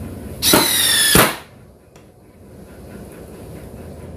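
DeWalt DCF850 brushless impact driver on speed 2 driving a screw into soft wood: one short run of about a second, its whine falling slightly in pitch, then stopping sharply.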